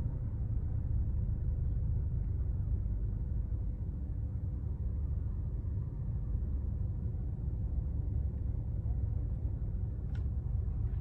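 Steady low rumble inside a car's cabin, with a faint constant hum running through it.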